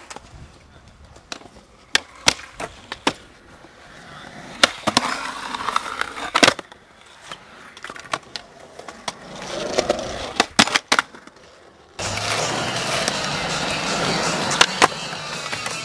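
Skateboards on smooth concrete: wheels rolling, with a string of sharp pops and clacks from tails snapping and boards landing. About twelve seconds in, music comes in suddenly and plays under the skating.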